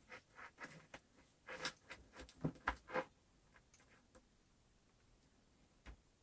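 Faint clicks and rustles of hands handling a phone and a USB cable during the first few seconds, then a single short click near the end as the USB-C plug goes into the phone's port.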